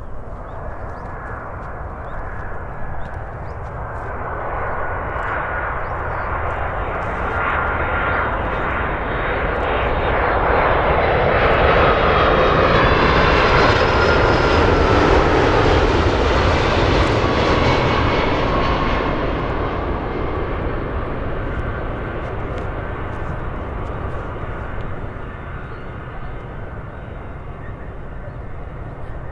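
Boeing 767-300 airliner's jet engines on landing approach, the noise growing louder as it nears, peaking about halfway with whining tones that slide down in pitch as it passes, then fading as it touches down on the runway.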